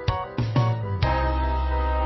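Background music with sustained keyboard chords over a steady bass, the chord changing about a second in.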